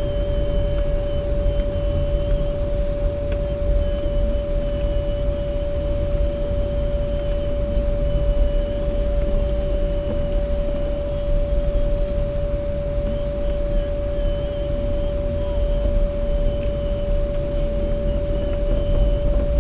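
Low, steady rumble of a car on the move, with a constant single-pitched whine running throughout.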